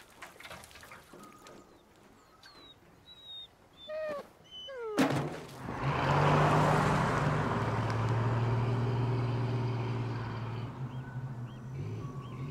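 A few bird calls and chirps, then about five seconds in a car's engine hum and tyre noise cut in loudly as it drives past along the road and away, slowly fading, with birds chirping again near the end.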